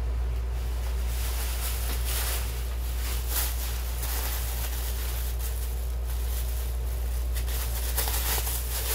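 Thin plastic grocery bag crinkling and rustling in short bursts as it is handled, starting about a second in, over a steady low hum.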